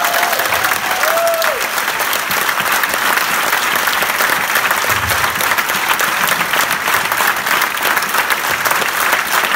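A large crowd applauding steadily, audience and performers clapping together. Two long high calls ring out over the clapping near the start.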